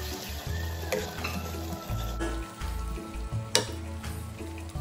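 Cabbage, onion and canned mackerel sizzling in a wok as a spatula stirs and turns them, with scraping of the spatula against the pan and one sharper knock about three and a half seconds in.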